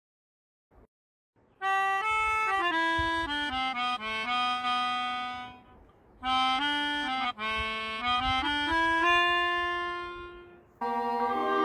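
Solo instrumental melody on a reedy wind instrument, played as two phrases with a short break between them. A fuller accompaniment comes in near the end.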